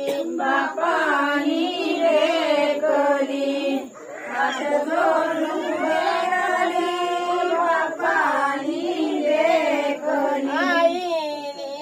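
Women and girls singing a traditional devotional chant together, several voices in unison, in long sung phrases with short breaks about four and eight seconds in.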